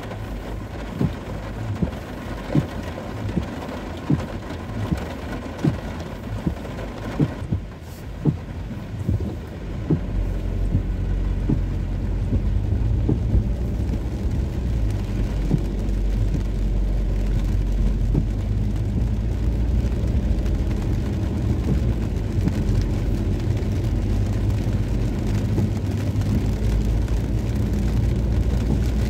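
Rain with the noise of a car. Sharp ticks come evenly, about every three-quarters of a second, for the first ten seconds. Then a steady low rumble of the moving vehicle comes up and stays.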